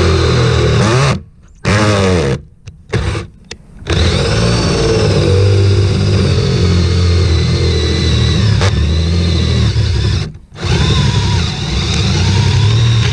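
Electric drill running in several spurts, its motor whine stopping and spinning back up a few times.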